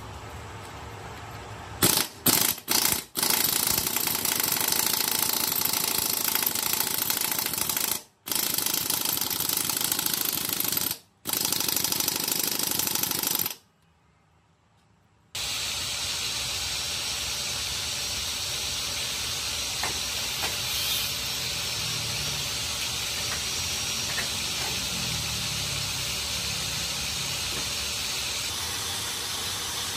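Pneumatic impact wrench running in bursts as it works nuts loose on the engine: a few short bursts, then longer runs that stop and start. After a brief silence it gives way to a steadier, quieter hiss.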